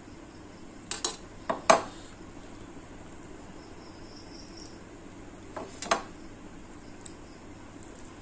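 Metal bowl and metal plate clinking together as curry is tipped out of the bowl and the bowl is set down: a cluster of sharp clinks about a second in and another pair near six seconds. Crickets chirp steadily in the background.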